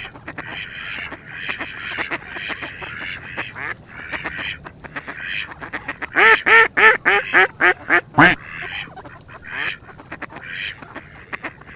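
Ducks quacking over and over, with a fast run of loud quacks about six seconds in.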